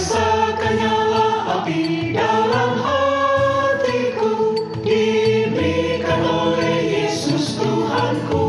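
Mixed choir of women's and men's voices singing a church song in Indonesian, several voices together in sustained sung lines.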